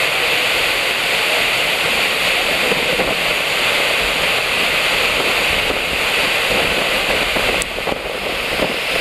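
Waterfall plunging into a pool: a loud, steady rush of falling water that dips briefly near the end.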